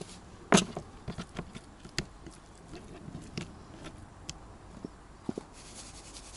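Raw pork chunks being turned and handled on a wooden cutting board while salt is shaken over them from a plastic shaker: scattered soft taps and knocks, with a sharper knock about half a second in and another at two seconds.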